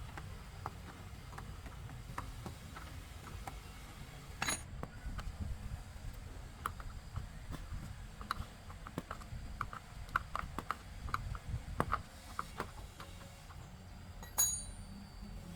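Light clicks and taps of hand tools working on metal machine parts, busier in the middle, with two sharper metal clinks that ring briefly, one early and one near the end.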